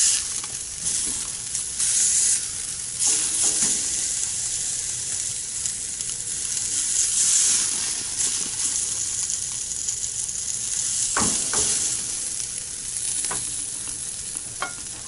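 Sous-vide T-bone steak and steak balls sizzling on the grate of a Camp Chef sear box set on high, searing hot and smoking. A few sharp clicks sound near the end.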